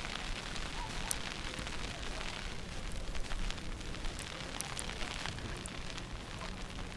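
Outdoor snowstorm street ambience: a steady noisy hiss scattered with small irregular crackles, like sleet or snow ticking and footsteps crunching in snow.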